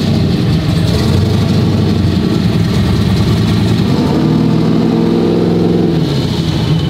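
A 1969 Camaro's twin-turbo engine running loud just after being started, its pitch rising from about four seconds in and dropping back shortly before the end, during a first-gear pull-off and hard stop to test the brakes.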